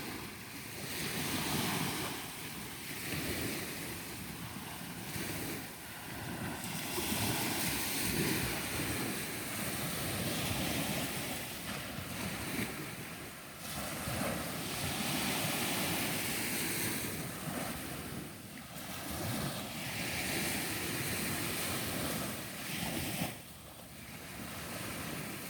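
Ocean surf washing onto the beach, swelling and easing every few seconds, with wind buffeting the microphone.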